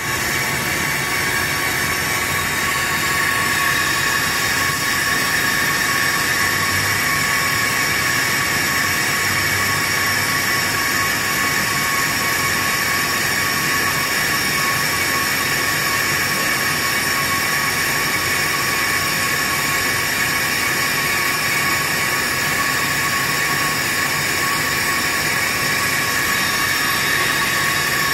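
Pro-Cut on-car brake lathe running steadily, its electric motor and gear drive turning a pickup truck's brake rotor while the cutting head resurfaces it. It makes an even whine over a constant hiss.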